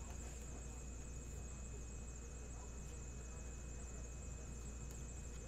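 Steady low electrical hum with a thin, continuous high-pitched whine over it: room tone.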